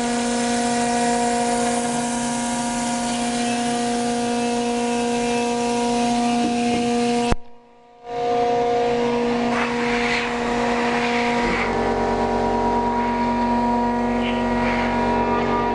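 CNC router spindle milling rigid high-density polyurethane foam, a steady whine over the hiss of the cut. The sound breaks off for under a second about seven seconds in, then resumes, and a deeper rumble joins about halfway through the rest.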